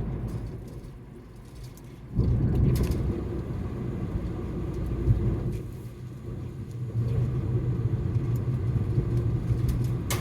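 Car cabin rumble from the engine and road. It dies down for a moment near the start, then returns abruptly about two seconds in and runs on steadily.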